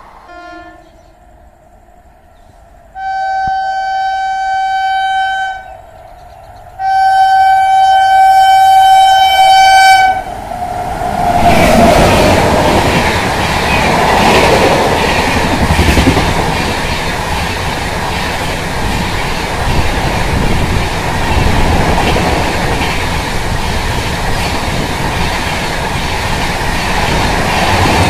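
Indian Railways superfast express running through a station at speed: two long horn blasts from its locomotive, the first about three seconds in and the second a little longer, then the train passing close, with a continuous loud rush of wheels and coaches and the clatter of wheels over rail joints.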